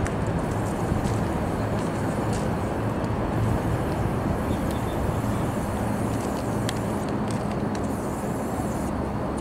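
Union Pearson Express Nippon Sharyo diesel multiple-unit train running as it pulls away: a steady low diesel engine hum over a rumbling yard noise, with a few faint clicks.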